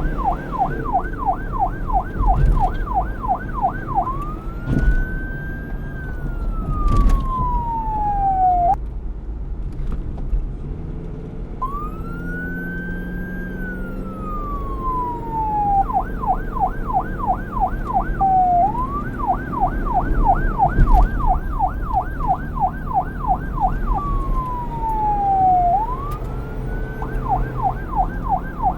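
Police car siren switching several times between a fast yelp of about three sweeps a second and a slow wail that rises, holds briefly and falls, with a low rumble underneath.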